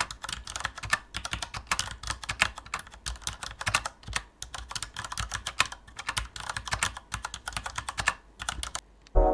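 Computer keyboard typing sound: rapid, uneven key clicks, stopping shortly before the end.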